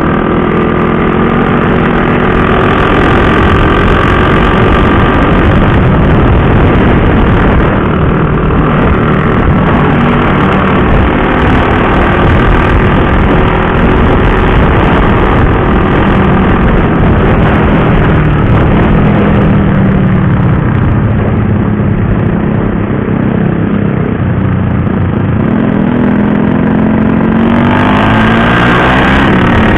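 KTM RC 390 single-cylinder engine heard from the rider's seat at road speed, its note rising and falling with the throttle and gear changes, over a constant rush of wind and road noise. Near the end the pitch sweeps up quickly several times as the rider accelerates through the gears.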